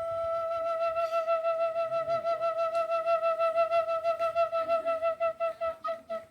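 Quena flute holding one long note, with a pulsing vibrato that sets in about a second in; the note breaks off briefly near the end.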